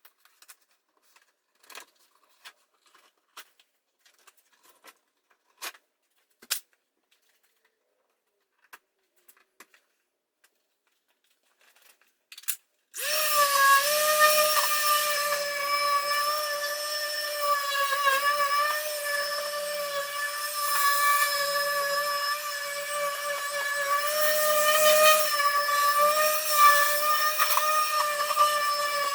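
Scattered light clicks and taps, then about halfway through an electric power tool starts up and runs on with a steady, even-pitched motor whine that wavers slightly.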